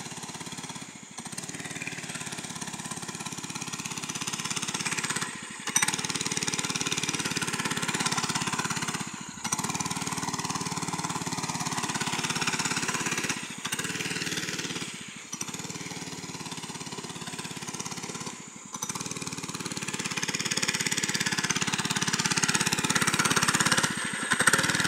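A mini bike's small engine running as it is ridden around, growing louder and fainter as it moves nearer and farther, and loudest near the end. The sound cuts out briefly several times.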